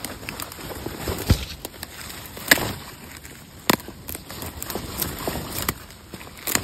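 Gloved hand digging and scraping in loose forest soil and leaf litter to work a plant's base free, an irregular rustling with three sharp clicks about a second apart in the first four seconds.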